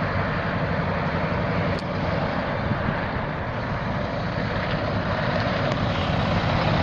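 2004 Mack Granite's Mack AMI 12.0-litre inline-six turbo diesel running steadily, with one faint click a little under two seconds in.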